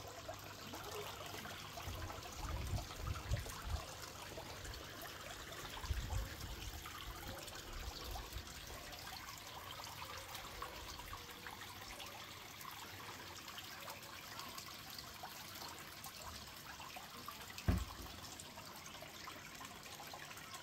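Water splashing and trickling steadily into a garden koi pond from a waterfall spout. A few low thumps come through, the loudest one sharp and brief near the end.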